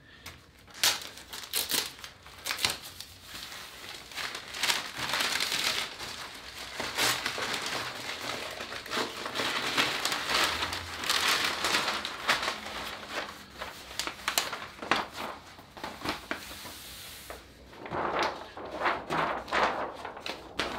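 Large sheets of paper rustling and crinkling with irregular crackles as a roll of plotter-printed paper is pulled out and unrolled.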